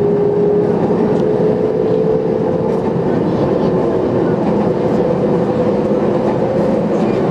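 Kobe Electric Railway electric train running, heard from the driver's cab: a steady rumble of wheels on rail under a motor whine that rises slowly in pitch as the train gathers speed.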